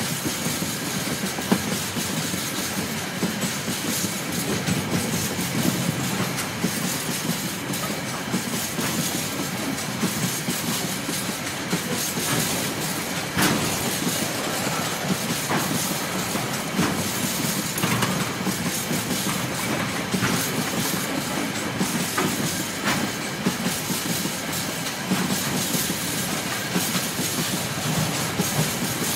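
Freight train's container flat wagons rolling past at about 30 km/h: a steady rumble of steel wheels on rail, with sharper clacks every few seconds as wheels cross rail joints.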